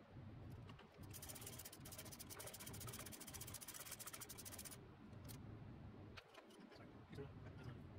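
A steel foot lever being fitted by hand onto its shaft on a 1960s Honda CB77 engine: faint metal-on-metal scraping and rubbing for about four seconds, then a few scattered light clicks.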